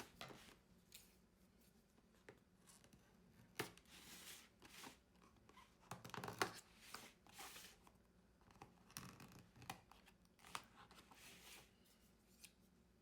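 Faint rustling, crinkling and tapping as a boxed planner kit's packaging is opened and handled, in scattered short spells with the loudest rustle about six seconds in.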